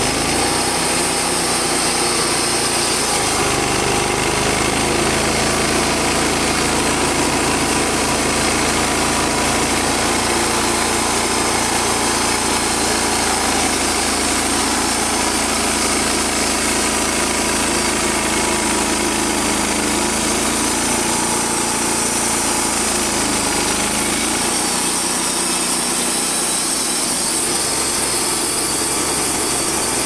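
Wood-Mizer LT35 hydraulic portable bandsaw mill running on its 25 hp gas engine, the band blade sawing a dead ash log. The steady note shifts about twenty-one seconds in and again near twenty-four.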